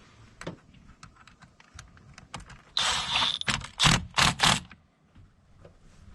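Hand work on an engine's air intake: small clicks and clatter of tools and parts, then a loud rasping stretch about three seconds in followed by four quick rasping strokes, as the 8 mm hose clamp on the intake is fastened.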